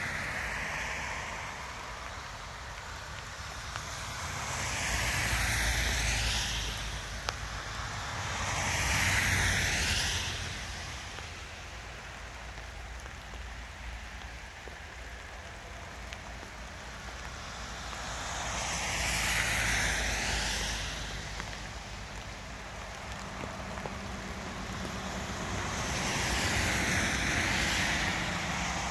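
Road traffic passing on a wet highway: tyres hissing on wet pavement, swelling up and fading away four times, with a low rumble under each pass.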